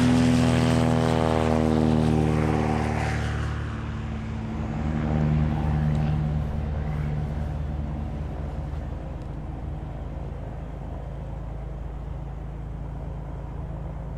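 Aircraft engine passing by, its tone sliding down in pitch and fading over the first four seconds, followed by a low steady rumble.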